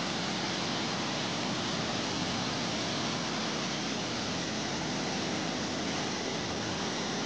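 Steady rush of a rain-swollen stream running in flood, an even noise without breaks.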